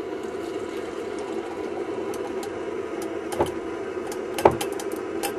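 Pressurized gasoline camp-stove burner running with a steady roar. A few sharp clinks of metal cookware are heard near the end, the loudest about four and a half seconds in.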